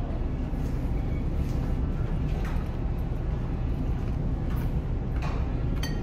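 Steady low rumble of a large car ferry underway, heard from inside the ship, with a few faint clinks of dishes and cutlery.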